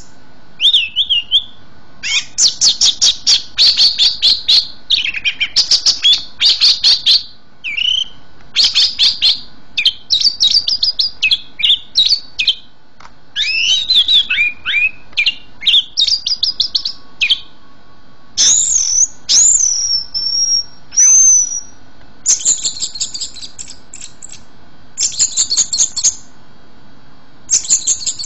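Songbird singing: bursts of rapid, high trills and chattering phrases with short pauses between them, and a few clear slurred whistles about two-thirds of the way through.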